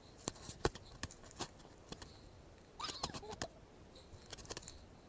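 Footsteps scuffing and crunching on a steep, dry dirt trail through brush, in scattered, irregular steps. A short pitched sound comes about three seconds in.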